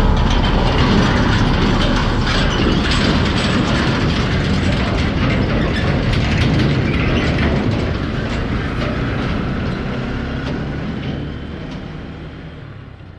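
Loud rumbling road-vehicle noise with rapid rattling clicks, fading away over the last few seconds.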